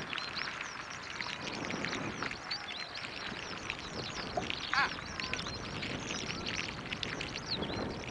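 Wild birds chirping and twittering continually in many short, quick notes, with one louder, lower call just under five seconds in.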